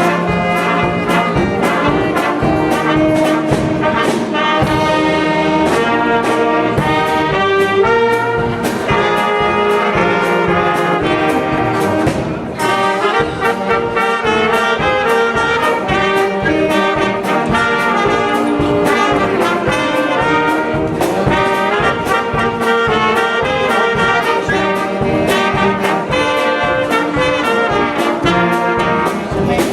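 Live amusement orchestra playing an upbeat brass-led number, with trombones and trumpets over a steady drum beat. The beat drops out briefly about twelve seconds in.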